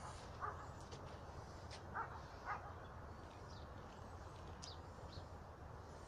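Faint dog barking: two pairs of short barks in the first three seconds. A few high bird chirps follow near the end.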